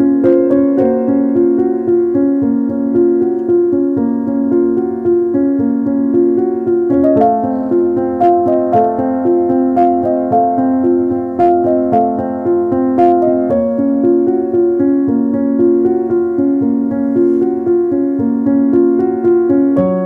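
Background piano music: a gentle, evenly paced piano piece, its melody moving up into a higher register about seven seconds in.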